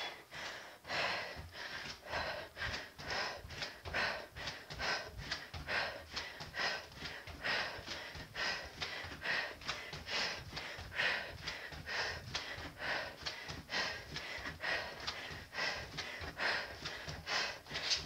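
A woman breathing hard and fast from exertion during a set of explosive jumping lunges, short rhythmic puffs of breath following one after another.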